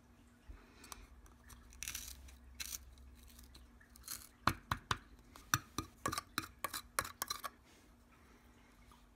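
The end of a metal pen grinding dried fish flakes to powder in a small clear cup: a few scraping strokes, then a quick run of about a dozen sharp taps in the second half.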